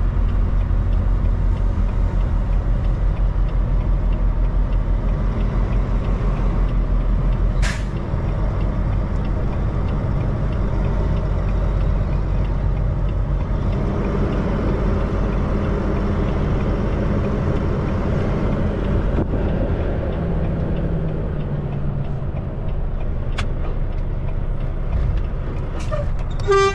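Semi truck's diesel engine running at low speed, heard from inside the cab, with a steady low throb. About eight seconds in comes a short, sharp hiss of air from the truck's air system, and right at the end a brief higher-pitched tone.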